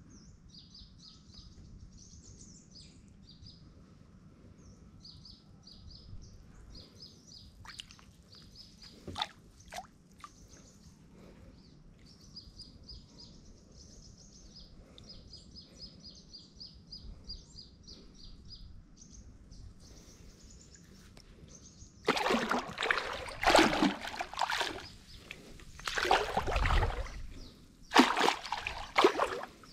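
Small birds chirping in quick trains of high notes. About two-thirds of the way in, these give way to water sloshing and splashing loudly several times as a floating stone-like block is pushed under and rocked in shallow water.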